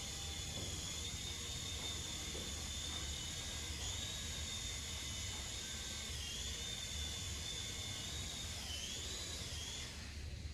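SYMA S53H toy RC helicopter's small electric motors whining as the rotors spin. The pitch steps up and down a few times with the throttle, and the whine cuts off near the end.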